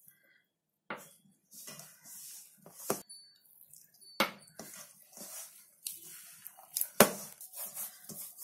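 Hands kneading stiff maida dough in a stainless steel bowl: rubbing and pressing noises, with the steel bowl knocking and clinking several times, the loudest knock about seven seconds in.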